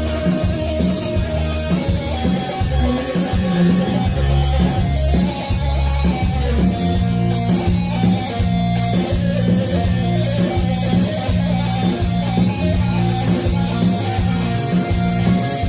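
Instrumental band music: an amplified plucked-string lead playing a melody over a steady bass and drum beat.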